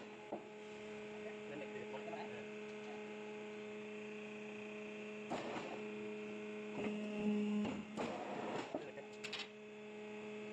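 Steady electric machine hum in a sheet-metal workshop, one even tone with overtones. Over it, stainless steel sheet clanks and rattles against the bending machine about five seconds in, and again several times between about seven and nine and a half seconds.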